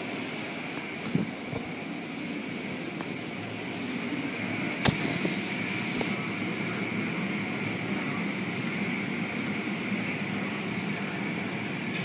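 Automatic tunnel car wash running: a steady mechanical whir of rotating cloth brushes and water spray, with a sharp knock about five seconds in and a smaller one a second later.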